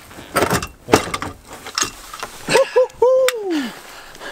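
Metal seat-rail frame from a VW Golf Mk2 clanking and knocking as it is handled and lifted. After that, a man makes a wordless vocal sound: two short notes, then a longer one that rises slightly and slides down.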